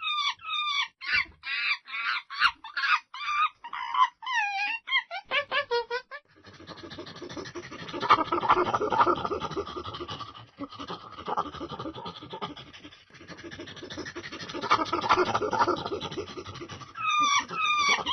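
Monkey calls: a quick series of short calls that bend up and down in pitch, then about six seconds in a dense, rapid chattering that swells twice before short pitched calls return near the end.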